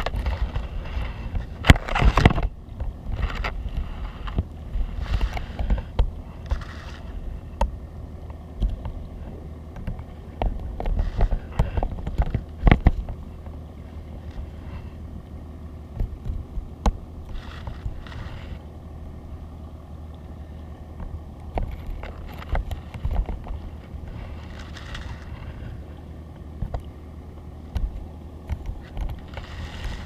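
Muffled underwater sound heard through a GoPro's sealed waterproof housing: a steady low rumble with scattered knocks and clicks, loudest about two seconds in and again near the middle.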